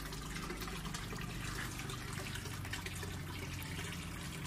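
Water running and splashing steadily as a siphon drains one aquaponics gutter grow bed into the gutter below it, the flood-and-drain flush still under way.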